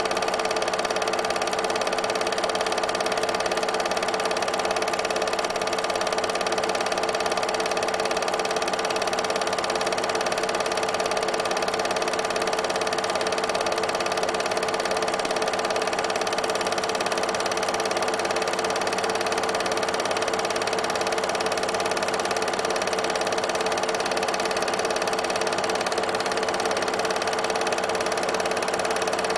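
Steady whirring and light clatter of an 8mm film projector running, an even mechanical hum that holds unchanged throughout.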